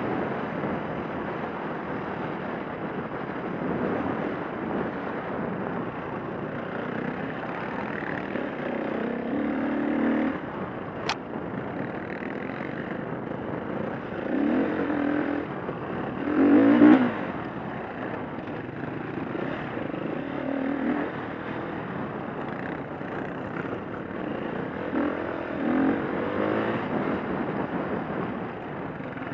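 The 2011 KTM 350 four-stroke single-cylinder dirt bike engine runs under load, its revs rising and falling with the throttle as it is ridden over a rough trail. The loudest surge of revs comes about 17 seconds in, and a brief sharp click sounds about 11 seconds in.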